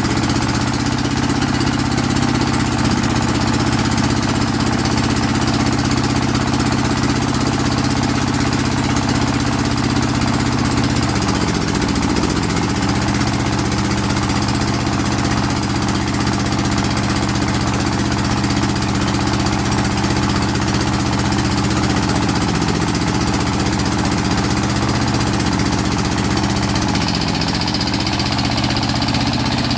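Water well drilling rig's 25 hp diesel engine running steadily, its pitch dipping briefly a few times.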